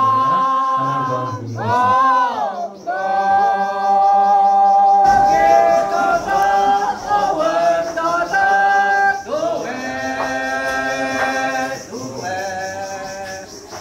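Group of men chanting together unaccompanied, a traditional field-work chant (ohnet), holding long drawn-out notes. Their voices slide up and back down about two seconds in and again near the end.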